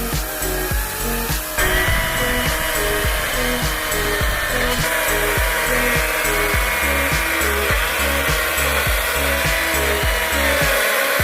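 Greenworks GD40CS18 40-volt cordless chainsaw running and cutting wood, its electric motor whine stepping up about a second and a half in and wavering with the load, under background music with a steady beat.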